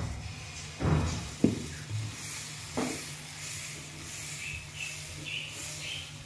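Dosa batter sizzling on a hot tawa as it is poured and spread in circles with the base of a steel ladle, a steady hiss. A few soft knocks of the ladle against the pan come in the first three seconds.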